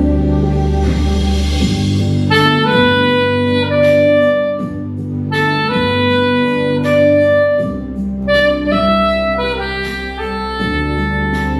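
Yanagisawa soprano saxophone playing a slow melody of long held notes, starting about two seconds in, over sustained low accompaniment chords, with the natural echo of a living room.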